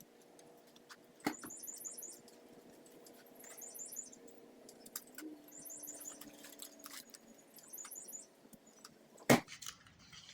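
Short trills of rapid, very high-pitched chirps repeating about every second and a half over a faint low hum, with a sharp knock about a second in and a louder knock near the end.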